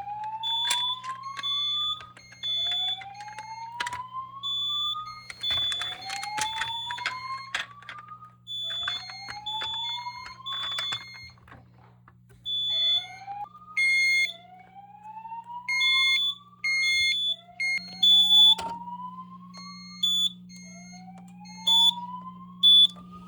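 A fire alarm system sounding in test: voice-evacuation speakers play a rising whoop tone, repeated every two seconds or so, while horn strobes blast short steady horn pulses in groups of three over it. The whoop is the alert tone that comes before the recorded evacuation message.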